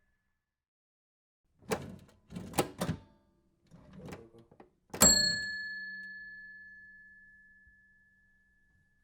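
Cash register: a few sharp clattering key strokes and a short rattle, then one loud strike of its bell, which rings out clearly and slowly fades over about three seconds.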